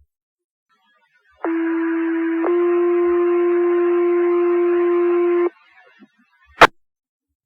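Two-tone sequential fire-paging alert over the dispatch radio channel. A first tone of about one second steps straight into a second, slightly different tone held for about three seconds, which sets off the volunteer firefighters' pagers. A sharp radio click follows about a second later.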